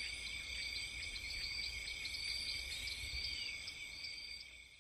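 Steady high-pitched insect chorus, like crickets chirring, over a low rumble, fading out near the end.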